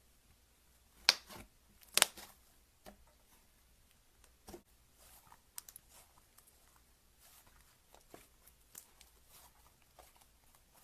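Slime being squeezed and stretched by hand: two loud sharp pops about one and two seconds in, then scattered smaller clicks and crackles.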